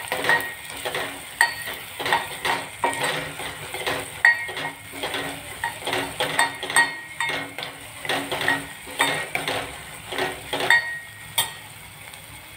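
A steel spoon scrapes and clinks against the inside of a steel pot, several strokes a second, as onion masala is stirred, with the masala sizzling underneath. A sharper clink comes near the end, then the stirring stops.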